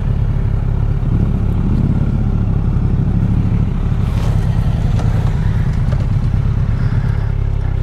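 Kawasaki Z1000SX inline-four motorcycle engine running steadily at low road speed, heard from the rider's seat, with a brief rise and fall in engine pitch about two seconds in.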